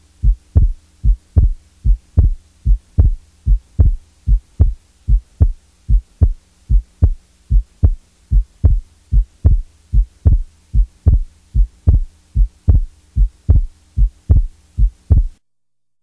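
Recorded heart sounds heard through a stethoscope: a steady run of low thumps, a little over two a second, over a faint steady low hum. The sound cuts off abruptly near the end.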